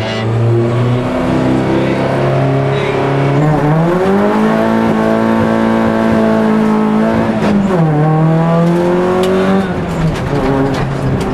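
Rally car engine heard from inside the cabin, running at steady raised revs, then accelerating hard about four seconds in with its pitch climbing. The pitch drops sharply at a gear change near eight seconds, climbs again and drops once more near the end.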